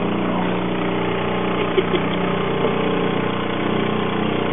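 Boat's outboard motor running steadily, with two brief knocks just under two seconds in.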